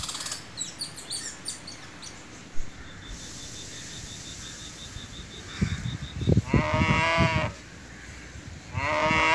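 Outdoor animal calls: quick high bird chirps, then a rapid, even run of high pips lasting about three seconds, then two drawn-out calls that rise and fall in pitch, one about six seconds in and one near the end.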